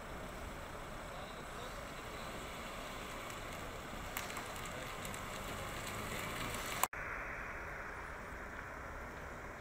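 Steady outdoor street background noise with no clear single source. There is a sharp click and a brief dropout at an edit about seven seconds in, after which the noise sounds duller.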